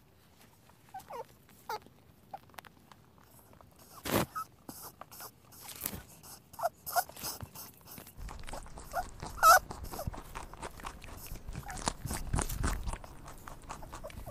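Rabbit sounds: short high squeaks scattered among irregular clicks. About halfway through, a low rumble sets in beneath them.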